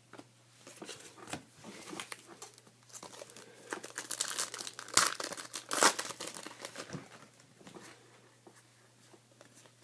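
Crinkling and tearing of a trading-card pack wrapper being ripped open, a rapid run of crackles that is loudest in the middle and dies away after about seven seconds.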